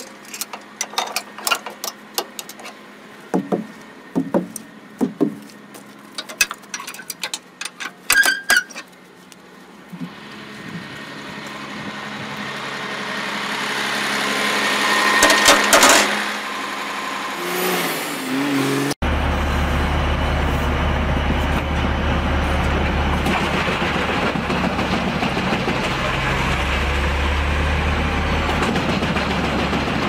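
Metal clanks and chain rattles as the binder chains of a loaded log truck are handled at the trailer stakes, then a truck engine swelling louder and falling away. About two-thirds of the way in it cuts to a large mobile wood shredder running steadily with a heavy low rumble.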